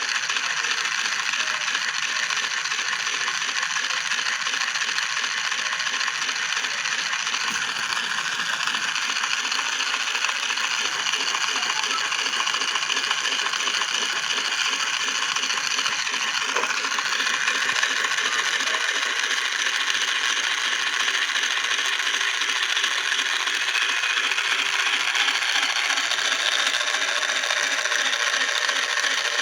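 Washing machine running: a steady, dense mechanical noise made up of fine rapid clicking, a little louder from about two-thirds of the way in.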